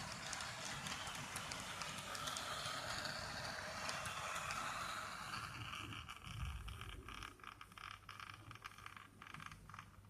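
Small electric motor whirring steadily with light clicks, changing about six seconds in to a quieter, choppy rattle.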